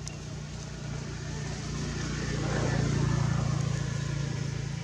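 A motor vehicle passing by: a steady low engine hum that swells to its loudest about three seconds in, then fades.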